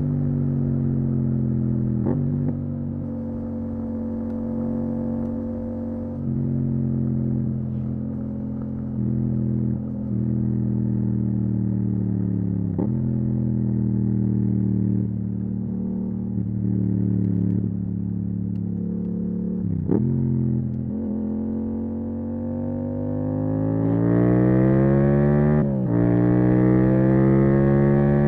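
Yamaha MT-07's parallel-twin engine through a full Akrapovic titanium exhaust, running at fairly steady low revs with small rises and falls and a few brief dips. In the last few seconds the revs climb steadily under acceleration, with one quick drop in pitch near the end like an upshift.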